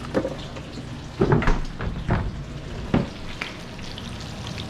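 Short rib searing in a hot pan, a steady sizzle, with a few sharp knocks of utensils or the pan over it, the loudest about a second in.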